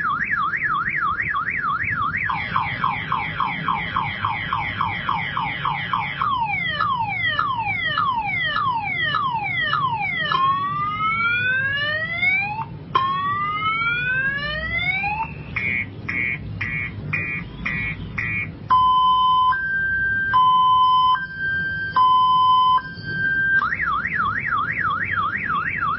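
Motorbike anti-theft alarm siren cycling through its tone patterns. It goes from a fast up-and-down warble to rapid falling chirps, then slower falling sweeps, two long rising whoops and a run of short beeps. Next comes a loud two-tone high-low alternation, and the warble starts over near the end.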